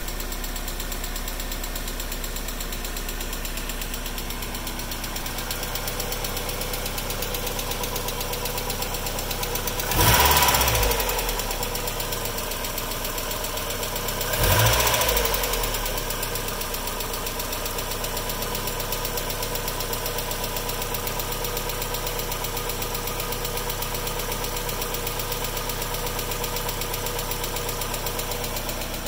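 Mazda Miata four-cylinder engine idling with a rapid, even lifter tick, revved up briefly twice about a third and halfway through. The hydraulic lifters are short of oil pressure after the car has sat, and the tick lasts until pressure builds back up.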